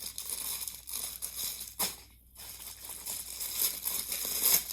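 Plastic packaging crinkling and rustling as a pack of fidget toys is opened by hand, with a short sharp crackle and a brief pause about two seconds in.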